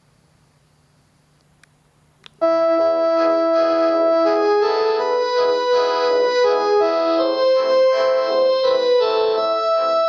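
Panasonic KX-TGD62xE cordless phone playing one of its built-in polyphonic ringtones: a keyboard-like melody with chords that starts suddenly about two and a half seconds in, after a near-silent pause with a couple of faint clicks.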